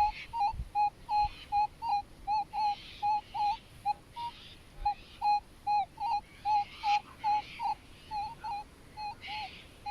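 Minelab Manticore metal detector giving a good target signal: a short beep repeats about twice a second as the coil sweeps back and forth over the spot. The signal comes from a buried coin, which turns out to be a Commonwealth halfpenny.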